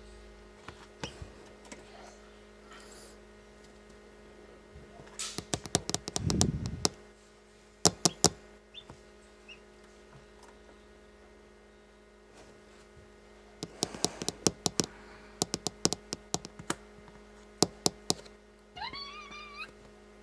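Runs of small, quick taps and clicks, in several clusters, over a steady hum; a newly hatching chick peeps near the end.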